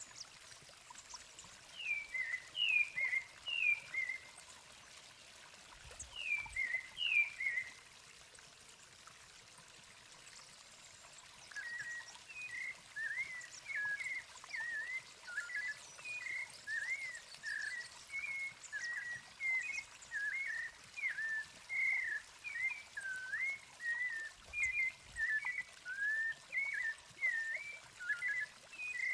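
Thrush song: two short groups of falling whistled notes early on, then from about twelve seconds a steady run of short, varied whistled phrases. These later phrases come from the white-necked thrush (sabiá-coleira).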